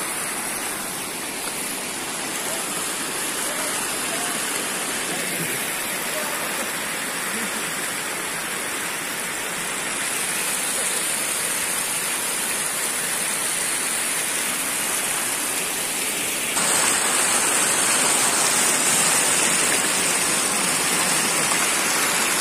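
Muddy floodwater rushing through a rice-paddy channel and spilling over the field bunds, a steady rush of water that gets louder about two-thirds of the way through.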